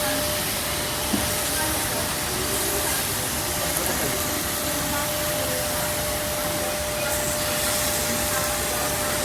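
A steady hiss with a constant thin hum under a faint murmur of voices: the ambience at a Korean barbecue table.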